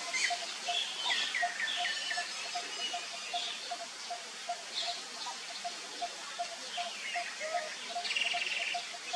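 Outdoor birdsong: several birds chirping, with a short fast trill near the end, over a steady, evenly repeated call of about three notes a second.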